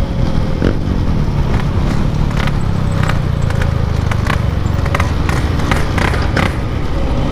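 Yamaha RX-King 135 cc two-stroke motorcycle engine running steadily under way through a "packing power" aftermarket exhaust, with scattered brief clicks over it.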